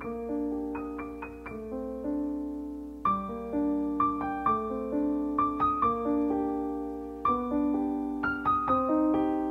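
Background music: solo piano playing a gentle melody over chords, each note struck and left to fade.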